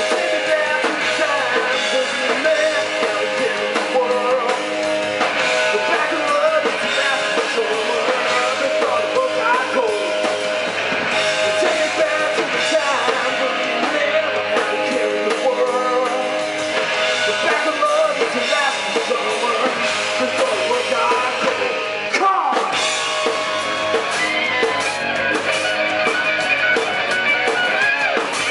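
Rock band playing a song: electric guitars and drum kit with a singing voice.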